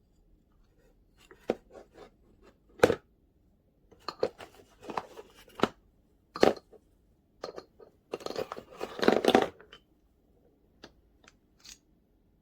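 Irregular clicks, rustles and short scrapes of something being handled at close range, strongest near the start and again past the middle.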